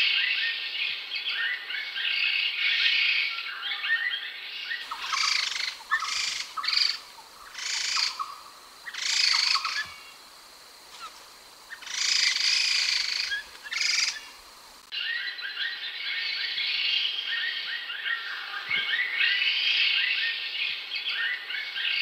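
Laughingthrush of the species called khướu đầu xám (khướu đất) calling: a dense, rapid chattering of short high notes. From about five seconds to fifteen seconds it gives way to separate loud phrases about a second apart, then the chattering resumes.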